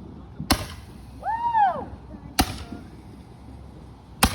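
Consumer fireworks going off: three sharp bangs about two seconds apart, the last the loudest. Between the first two bangs comes a short pitched tone that rises and falls.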